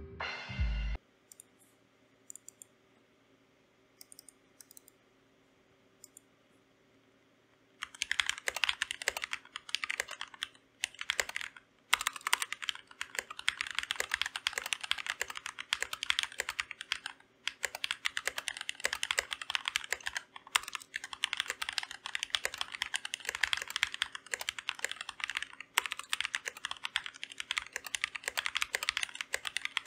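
Keychron K2 V2 mechanical keyboard with stock Gateron Red linear switches being typed on, a fast, continuous clatter of keystrokes. It starts about eight seconds in, after a few quiet seconds with only scattered faint clicks.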